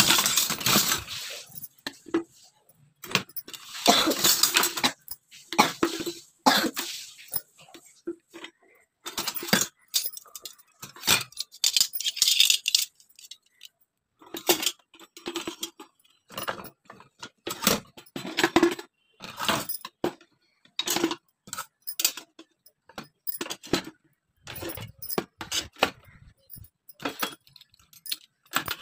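Steel kitchen utensils (ladles, skimmer, spatulas) clinking and clattering against each other and a plastic utensil holder as they are picked up and set in one after another. The clinks are irregular and come thickest in the first half.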